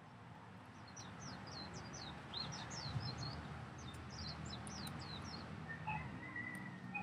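Small birds chirping: a rapid run of quick, high, falling chirps for several seconds, then a short, thinner level note near the end, over a low steady background rumble.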